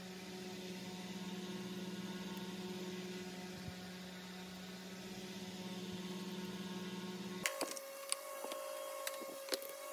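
Steady electrical hum under sped-up workshop sound. About three-quarters of the way through, the hum jumps abruptly higher in pitch as the playback speed rises, and quick clicks and taps of plastic parts being handled come in.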